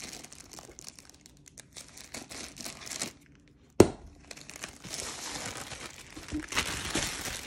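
Clear plastic bag crinkling as it is pulled off a rolled diamond-painting canvas, with one sharp tap a little under four seconds in.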